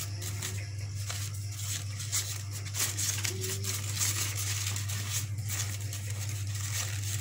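Red crepe paper rustling and crinkling softly as it is handled and gathered by hand, over a steady low electrical hum.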